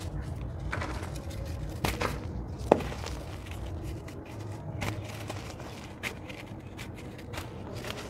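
Hands digging in dry red dirt powder and handling a crumbly red dirt block: gritty scraping and rustling with scattered sharp cracks as bits break off, the loudest a little under three seconds in, over a steady low rumble.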